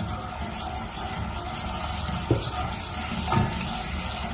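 A wooden spoon stirring sugar into thin rose-water syrup in a pot, over a steady hiss, with two sharp knocks of the spoon against the pot, a little after two seconds and again about a second later. The sugar is being stirred to dissolve it.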